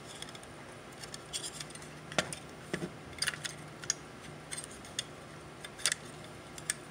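Small sharp clicks and taps at irregular intervals as the plastic and metal parts of a BrightSign HD224 media player are handled and fitted back together by hand.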